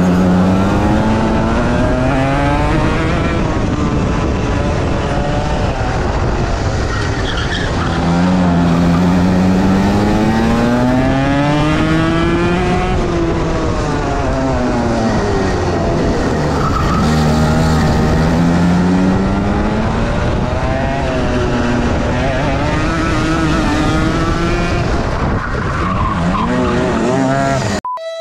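Rotax Max 125cc single-cylinder two-stroke kart engine, heard on board at racing speed. Its pitch climbs on the straights and drops off into the corners, several times over. It cuts off abruptly near the end.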